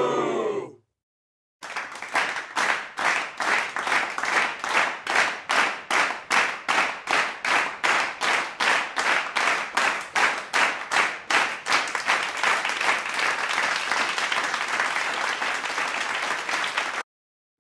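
A crowd clapping in unison at about three claps a second, breaking into continuous applause about twelve seconds in, which cuts off suddenly near the end.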